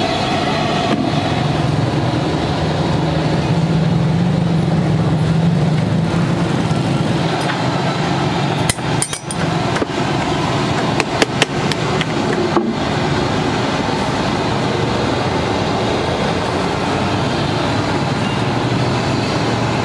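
Lead battery plates being handled and trimmed with a knife: a few sharp clicks and clinks about nine seconds in and again around eleven to twelve seconds. A steady background rumble runs under them throughout.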